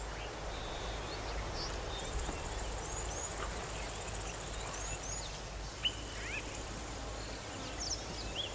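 Outdoor bush ambience: scattered short bird chirps over a steady background hiss, with a high, even trill running for about three seconds near the start.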